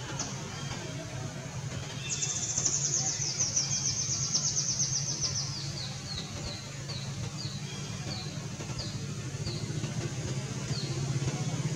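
A bird singing: about two seconds in, a fast high trill that slowly slides lower, then a string of separate short falling chirps, about two a second. A steady low hum runs underneath.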